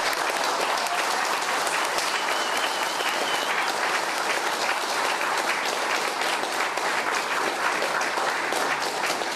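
Audience applause: many people clapping, dense and steady.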